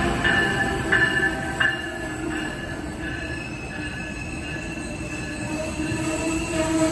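Amtrak passenger train of Amfleet coaches rolling past at close range behind a Siemens ACS-64 electric locomotive. The wheels knock regularly over the rail joints for the first few seconds, then a steady high whine takes over, with a lower steady tone growing louder near the end.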